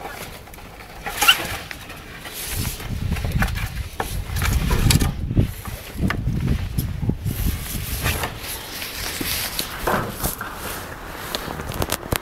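A presa canario puppy gives a brief high whimper about a second in, followed by a stretch of low rumbling noise with scattered small knocks.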